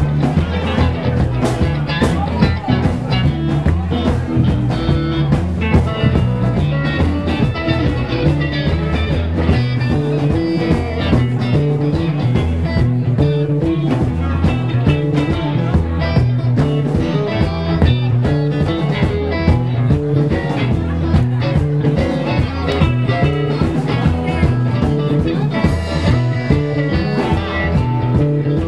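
Live blues-rock band playing an instrumental shuffle blues: amplified electric guitars, bass guitar and drum kit, steady and loud.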